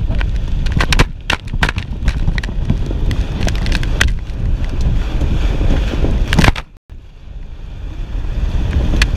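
Wind buffeting an action camera's microphone and water slapping and spraying against an inflatable towable tube being pulled fast over water: a steady low rumble broken by frequent sharp slaps. The sound drops away abruptly for a moment about seven seconds in, then builds back up.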